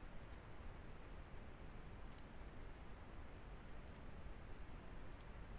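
A few faint computer mouse clicks, a couple of seconds apart, over a steady low hiss.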